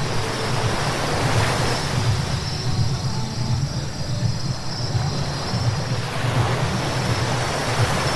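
Car driving on a wet road: a steady hiss of tyres on wet asphalt over a low, even road and engine hum.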